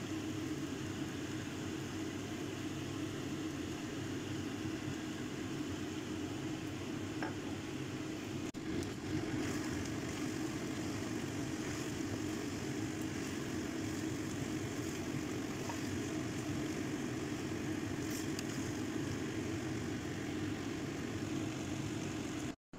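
Udon noodles stir-frying in a pan: a steady sizzle and rushing noise with a low hum, and a few light clicks of the tongs against the pan.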